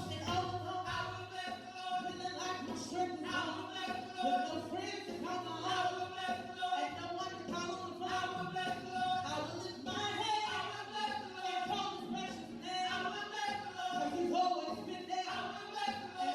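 Church praise singers singing a gospel song as a group, with long held notes.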